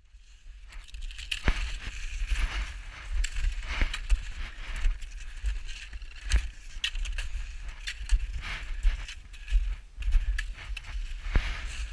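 Steps crunching irregularly through crusted, wind-packed snow, with wind buffeting the microphone as a steady low rumble.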